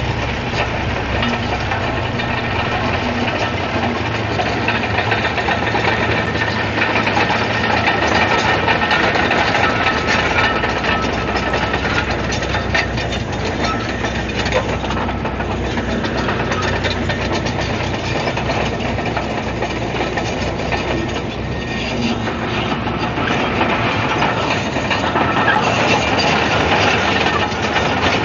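Komatsu D155AX-7 bulldozer's diesel engine running steadily and loud, with many small clanks and knocks scattered through it.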